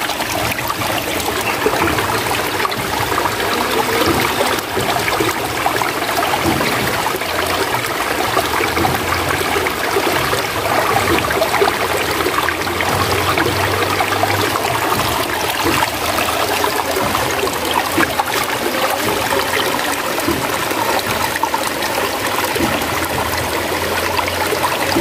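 Water gushing steadily from a bamboo pipe spout into a shallow stream, splashing over a split bamboo tube being rinsed under it.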